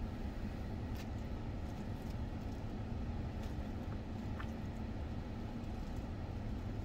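Steady low rumble of a parked car running, heard inside the cabin, with a few faint clicks from eating.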